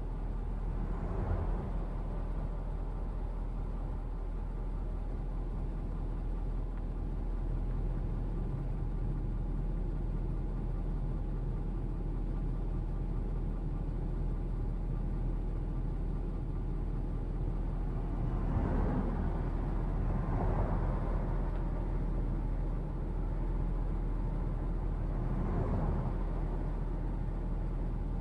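Steady low rumble and hum heard inside a parked vehicle's cabin, with brief swells of noise about a second in, twice a little past the middle, and once more near the end.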